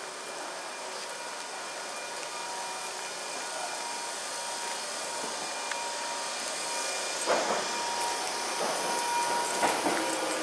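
Kintetsu 22000-series limited-express train pulling out and running past along the platform: a steady rushing noise that slowly grows louder as it gathers speed. From about seven seconds in, the wheels clatter and knock over the rail joints.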